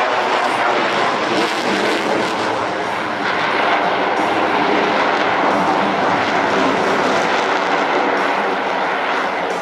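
Loud, steady jet engine noise from an F-22 Raptor's two afterburning turbofans as the fighter maneuvers overhead.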